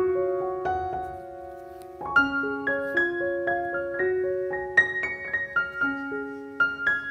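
Background piano music: single notes played one after another over held lower notes, with a chord left ringing and fading for about a second and a half near the start.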